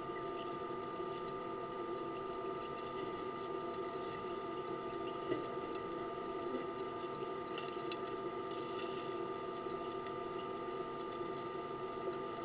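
A steady electrical or mechanical hum made of several even tones, with a few faint clicks and brief high chirps.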